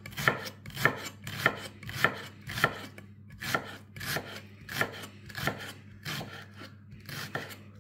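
Knife slicing onions thinly on a cutting board, about a dozen even crisp cuts at a steady pace of a little under two per second.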